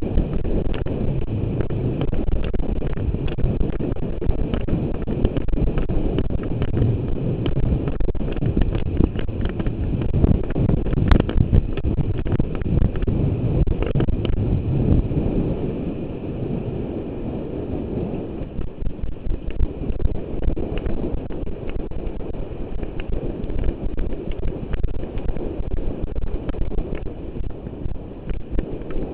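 Heavy wind buffeting a helmet-mounted microphone on a galloping racehorse, with the rapid clatter of hoofbeats on the track beneath it. The rush eases somewhat about two-thirds of the way through.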